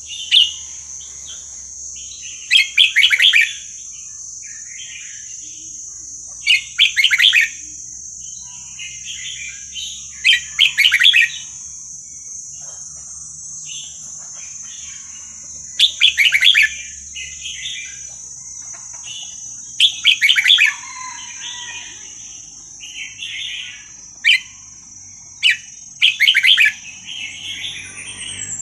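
A red-whiskered bulbul singing in short, loud phrases of chirps every few seconds, about nine in all, over a steady high-pitched drone.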